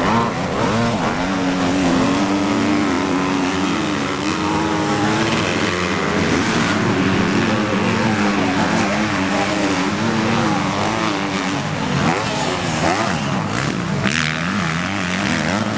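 MX2-class motocross bike engines revving up and down as they ride a muddy track, the pitch rising and falling with the throttle.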